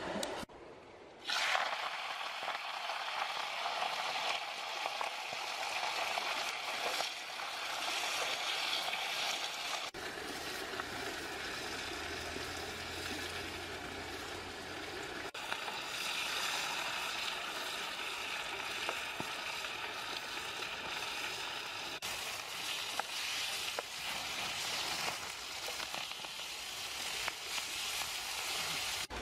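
Bok choy dropped into a hot wok over a wood fire, starting a sudden loud sizzle about a second in that then goes on as a steady frying hiss while the greens wilt.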